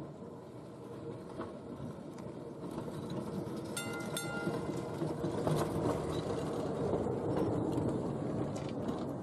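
Heritage electric tram running on rails, its rumble growing louder as it approaches, with a brief ringing tone about four seconds in.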